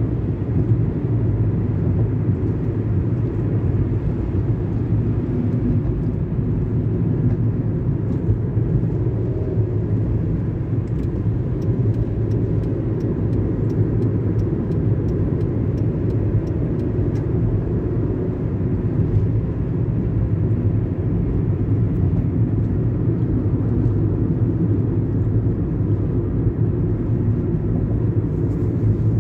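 Steady low rumble of a car's engine and tyres on the road, heard from inside the cabin while driving at road speed.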